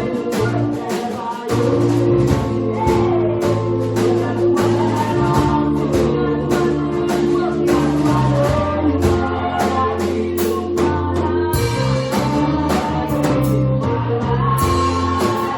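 Church choir singing a gospel song with live band accompaniment: a sustained bass line under the voices and a steady drum beat.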